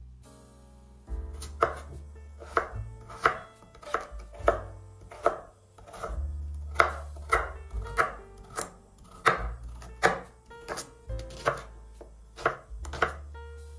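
Knife chopping food on a cutting board, sharp strokes about two a second, unevenly spaced.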